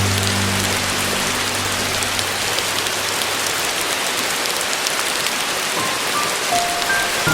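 Steady rain with soft piano music over it. A low held chord fades away in the first couple of seconds, then a few single high piano notes sound near the end.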